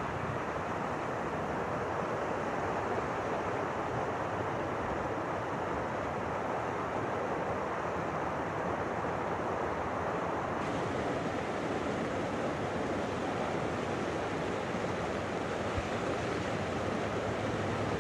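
Storm-swollen floodwater rushing and churning, a steady even rush of water noise. It turns brighter and hissier about ten seconds in.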